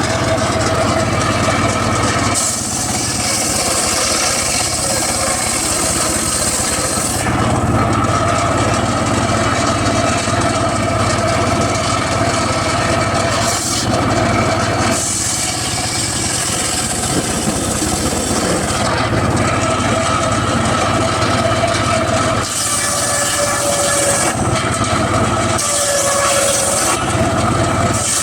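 Homemade circular saw running steadily, its blade cutting teak wood in repeated passes: a high cutting hiss comes and goes every few seconds over the steady hum of the running saw.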